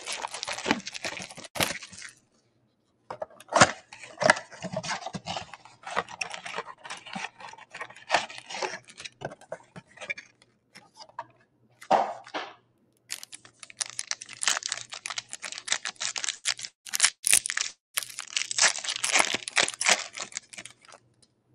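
Wrappers of 2020 Chronicles football card boxes and packs being torn open and crinkled by hand, in several stretches of crackling and rustling with short pauses between.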